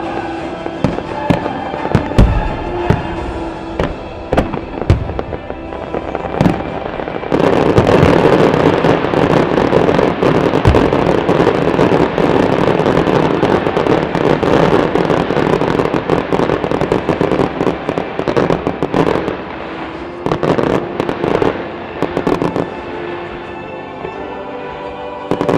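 Aerial fireworks display bursting over music: separate booming shell bursts at first, then from about seven seconds in a dense barrage of rapid bangs and crackling lasting about twelve seconds, thinning to scattered bangs near the end.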